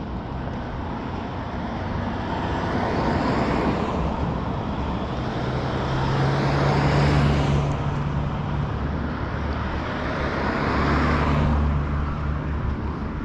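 Cars passing one after another on a road, about three in turn, their tyre and engine noise swelling and fading with each pass.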